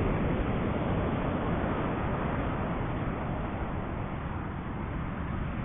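Wind buffeting the microphone in a steady, heavy rumble, over the hiss of ocean surf.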